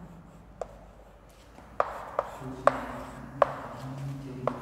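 Chalk tapping and scratching on a blackboard as an equation is written, with about five sharp taps spread irregularly over the few seconds.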